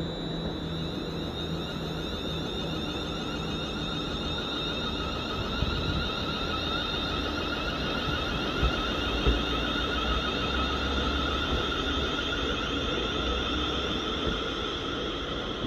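ScotRail electric multiple-unit train running past and drawing away: a steady high electric whine of several tones over a low rumble, with a few light knocks about halfway through.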